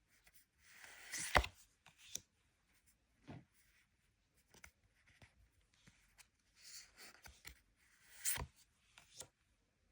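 Pokémon trading cards and their cardboard and plastic packaging being handled: soft rustling with small ticks, and a sharp tap about a second and a half in and another near the end.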